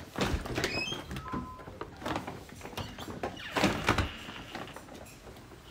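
A front door and a metal screen door being opened and pushed shut, with latch clicks, a few short squeaks and knocks. The loudest knocks come a little under four seconds in.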